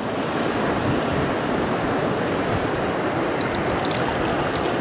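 River water rushing steadily over stones, one even rush without a break, with some wind on the microphone.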